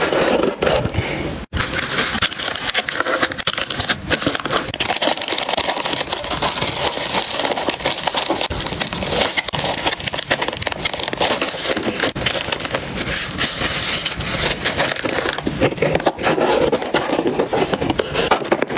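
Plastic bubble wrap and paper cards crinkling and rustling as they are handled and packed into a cardboard mailer box, a dense run of fine crackles. The sound breaks off briefly about a second and a half in.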